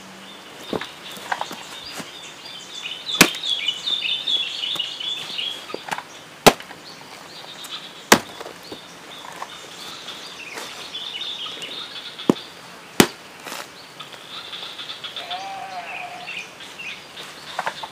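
Machete chopping into a jackfruit's rind and core: several sharp, separate chops a few seconds apart, with birds chirping in the background.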